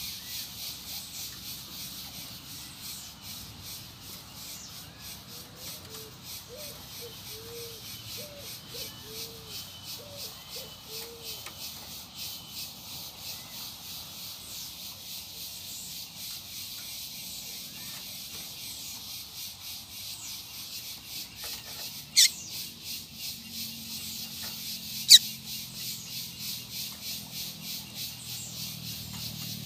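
Steady, evenly pulsing insect chorus in scrubland. Faint bird notes and a short run of low notes fall in the first half, and two sharp, loud clicks come about three seconds apart late on.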